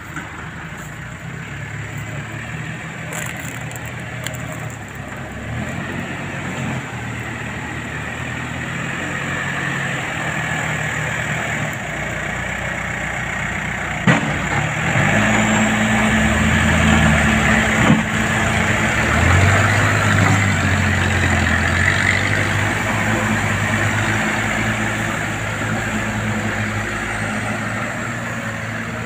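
Diesel engines of a backhoe loader and a loaded oil-palm truck working under load as the backhoe's front bucket pushes the bogged truck up a muddy slope. The engine sound grows louder and steps up in pitch about halfway through, with two sharp knocks a few seconds apart.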